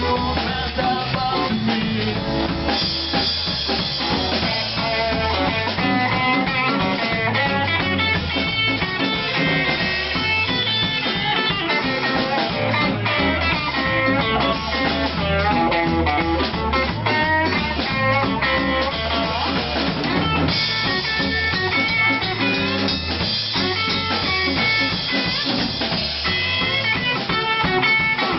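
Live blues-rock band playing an instrumental break in the song: electric guitar playing quick lead lines over a drum kit.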